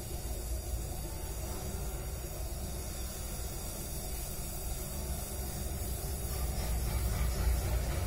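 Gas welding torch burning with a steady rumbling hiss, growing a little louder near the end.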